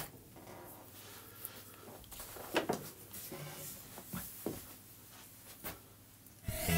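A boxed motor is set down on a cloth-covered table with a short knock, followed by faint scattered clicks and rustles. Music starts near the end.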